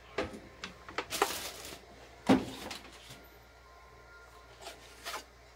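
Handling noise from a cordless circular saw being picked up and turned over: a string of knocks and clunks of its plastic body and metal shoe, the loudest about two seconds in, with a short rustle about a second in.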